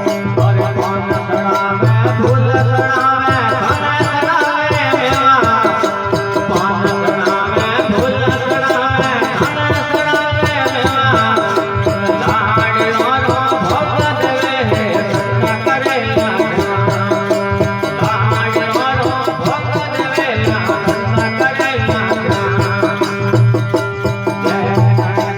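Indian devotional folk music: a melody over a steady, pulsing drum beat, with no words sung.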